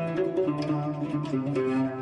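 Instrumental background music led by plucked strings playing a melody of changing notes over sustained low tones.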